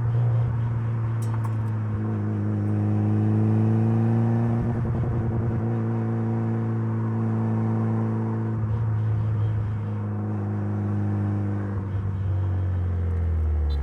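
Mitsubishi Lancer Evolution's turbocharged 4G63 inline-four running at a nearly steady pitch under light throttle, easing off and picking up slightly a few times.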